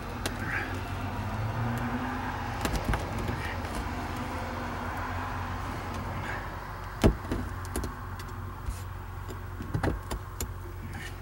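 Homemade leaf-spring knife cutting through truck cab carpet and sound deadening, with a few sharp clicks and knocks, the loudest about seven seconds in. Steady road-traffic noise runs underneath.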